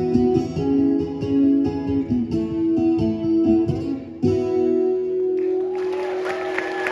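Solo acoustic guitar fingerpicked, ending about four seconds in on a final chord that is left ringing. Audience applause starts a second later under the fading chord.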